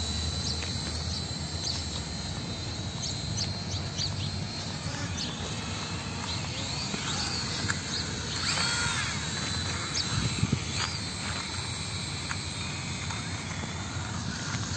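E88 toy camera quadcopter's small motors and propellers running with a steady high whine.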